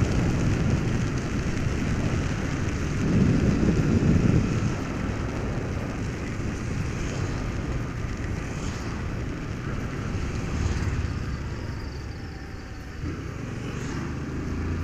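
Honda Fan 150 motorcycle's single-cylinder engine running as the bike rides along a wet road, under steady wind rumble on the camera microphone and tyre hiss. It grows louder for a moment about three seconds in.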